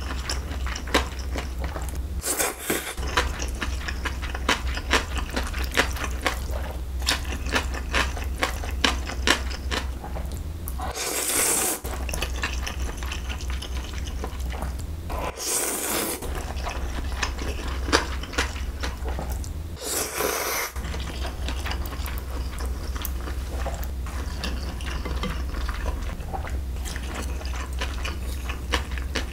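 Close-miked eating of thin, chewy cold milmyeon wheat noodles: four loud, wet slurps, about 2, 11, 15 and 20 seconds in, with steady wet chewing and small clicking mouth sounds in between.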